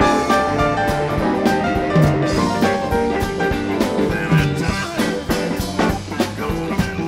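Live blues-rock band playing an instrumental passage, with drum kit and electric guitar over the band; the drums come in hard right at the start.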